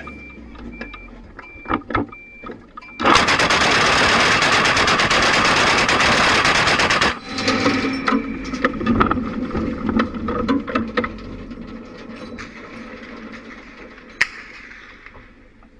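Twin-barrelled anti-aircraft gun firing one long burst of about four seconds. The burst starts about three seconds in and cuts off suddenly, followed by scattered clatter and knocks.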